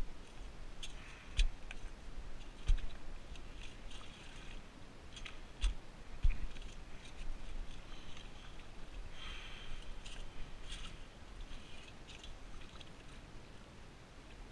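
Gritty crunching and scraping of sand and stones, with a few low thumps in the first half.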